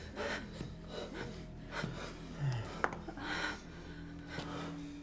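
A person breathing hard in several short, breathy gasps about a second apart, over a low steady hum.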